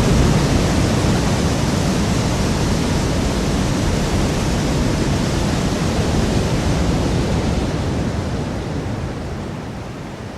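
Designed tsunami sound effect: layered, processed ocean waves and water splashes making a dense, heavy churning wash of water, easing off near the end.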